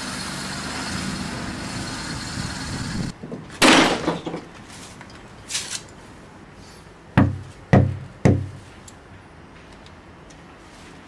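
A door: a loud bang as it shuts about three and a half seconds in, a few lighter clatters, then three heavy knocks on it about half a second apart. Before the bang there is a steady noise with a low hum, which cuts off suddenly.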